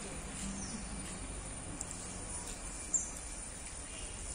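Outdoor background noise: a steady low hiss and rumble with a few faint high chirps, and one short, sharp high chirp about three seconds in.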